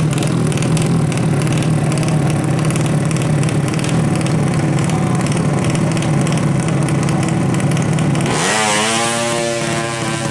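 Drag-racing underbone motorcycle engine running steadily at idle, then about eight seconds in revving hard with a rising pitch as it accelerates.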